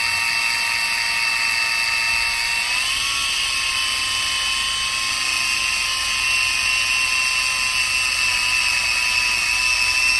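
Small toy drone's propeller motors spinning fast, a loud high steady whine that steps up slightly in pitch about three seconds in and then holds.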